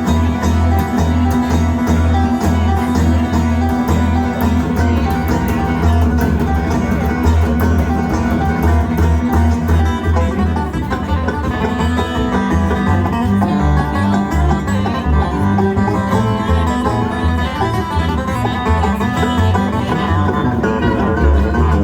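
Live bluegrass band playing an instrumental break, with banjo picking over a pulsing bass line.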